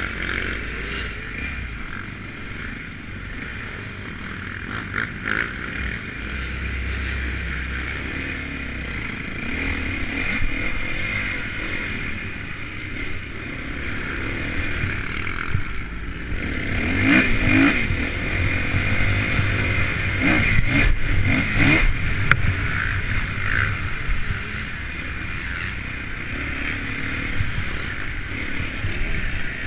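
Honda CRF450 motocross bike's single-cylinder four-stroke engine running close up as the bike pulls away and rides a dirt track, revving up and down. About two-thirds of the way through it gets louder, with a run of knocks and clatter over the rough ground.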